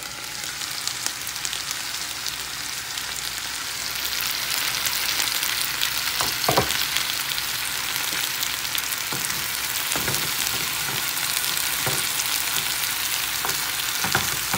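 Chicken pieces and potato strips sizzling in an open frying pan. The sizzle jumps in loudness as the lid comes off at the start, with a few light knocks scattered through it.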